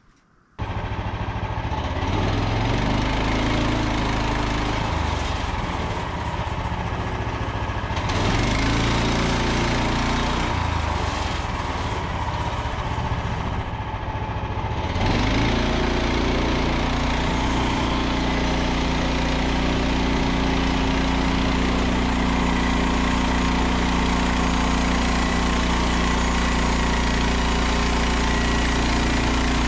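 Petrol engine of a Frontier portable bandsaw mill starting up about half a second in and running unevenly, its speed wandering. About halfway through it steps up to a steady, louder run as the saw head is brought to the Douglas fir log for the first cut.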